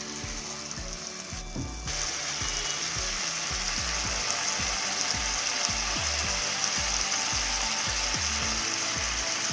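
Food sizzling in hot oil in a wok, with a steady hiss that grows louder about two seconds in. Background music plays underneath.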